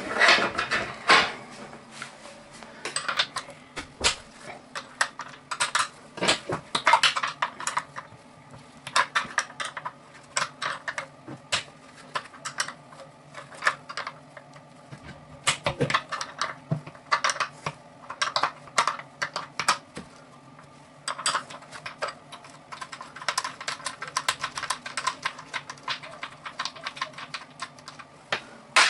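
Irregular runs of quick metallic clicks and clinks as a small hand tool works the nuts on the underside flange of an electric water heater, loosening them.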